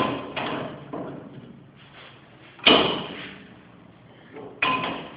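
Metal parts knocking as a fitting is put onto a brake lathe's arbor against a brake rotor: four separate clanks, each ringing briefly, the loudest about two and a half seconds in.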